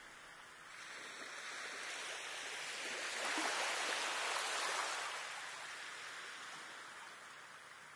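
A rushing noise that swells up over about three seconds and slowly fades away, with no tune or steady note in it, much like a wave washing in on a shore.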